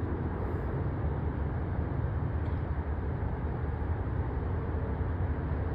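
Steady low rumble of outdoor background noise with no distinct bangs or shots.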